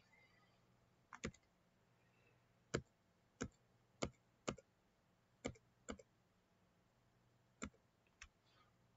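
Computer mouse buttons clicking: about ten sharp clicks at irregular intervals, some in quick pairs.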